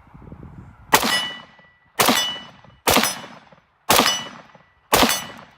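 VZ 58 rifle, 7.62×39 mm, fired five times in semi-automatic at a steady pace of about one shot a second, each shot sharp with a ringing tail.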